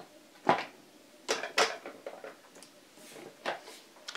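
18650 lithium-ion cells being pushed one at a time into black plastic cell-holder spacers and knocking against neighbouring cells: several short, sharp clicks spaced irregularly, two of them close together about a second and a half in.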